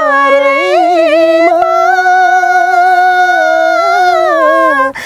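Unaccompanied voice singing a Nepali folk song, holding one long note with a slight waver for nearly five seconds, dipping in pitch as it ends.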